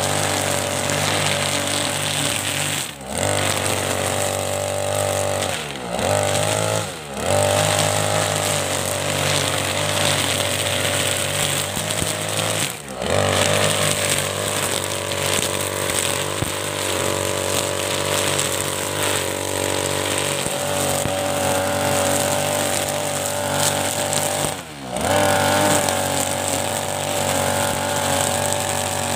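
Petrol brush cutter with a nylon trimmer line head running at high speed while cutting thick lalang grass. Its engine drops in speed briefly and picks up again about five times as the throttle is eased and reopened.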